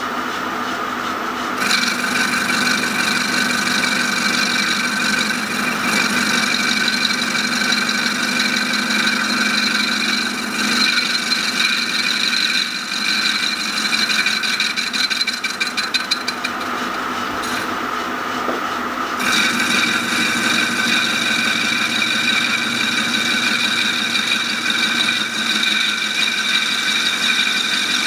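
Metal lathe running while a boring tool takes a light cut inside a metal dome casting: a steady machine whine with a scraping cutting noise. The cut starts about two seconds in and eases off briefly about two-thirds of the way through before resuming.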